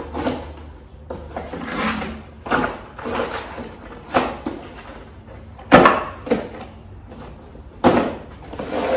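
Cardboard boxes being handled on a table: a box is closed and set down onto a stack, giving several knocks and thuds with cardboard rustling between them. The loudest knock comes about six seconds in.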